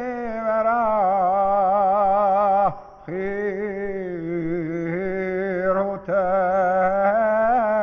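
A single voice singing a slow, chant-like melody on long, wavering notes, in three phrases with short breaks about three and six seconds in.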